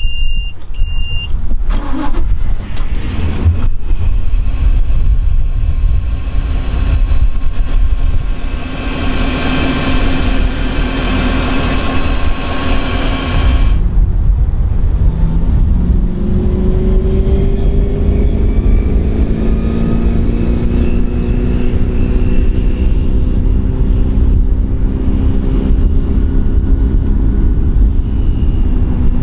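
A short beep about a second in, then the boat's Volvo Penta 5.7 GI V8 stern-drive engine is started and runs. After a cut, a motorboat engine accelerates with rising pitch over steady wind rumble.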